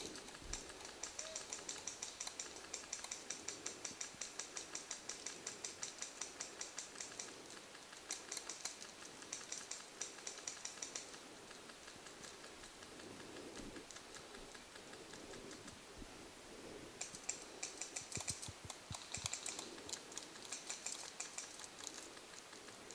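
Paintball markers firing in long rapid strings of pops, a run lasting about ten seconds, then a pause, then more bursts of fire near the end.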